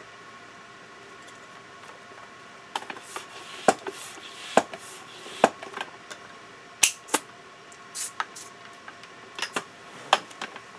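Scattered sharp clicks and knocks, roughly one a second and starting a few seconds in, from handling a bicycle wheel and pump fittings while a little air is put back into the inner tube.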